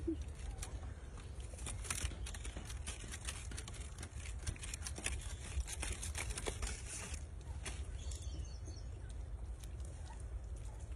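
Hands rubbing and patting wet spice paste onto a raw whole chicken on a banana leaf: many soft wet clicks and slaps, busiest in the middle, over a steady low rumble.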